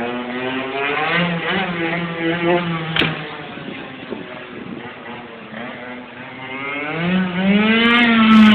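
Metrakit minimoto engine revving as the bike rides. Its pitch climbs over the first few seconds, sags in the middle, then rises again to its loudest just before the end and falls away, with a single sharp click about three seconds in.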